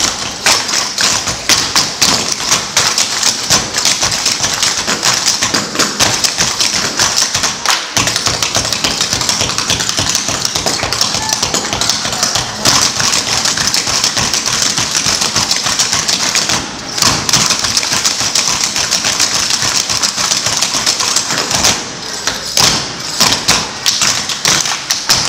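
A team of cloggers dancing a cappella on a wooden floor: a fast, dense clatter of clogging taps struck in unison, with short breaks about two-thirds of the way through and again near the end.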